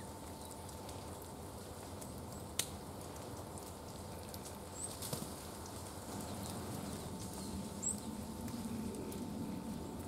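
Brambling pecking and shuffling among seeds on a wooden feeder tray: soft pattering and scrabbling with a few sharp clicks, and two very brief high chirps from a bird.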